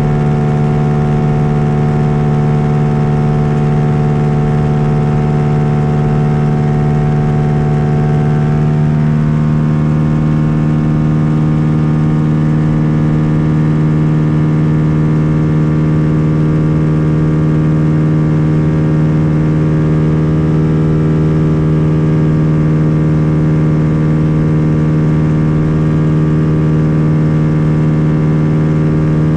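Lake Buccaneer LA-4-200 amphibian's four-cylinder Lycoming engine and pusher propeller running steadily in flight, a loud even drone. About nine seconds in the engine note shifts slightly, as with a change of power setting on the approach.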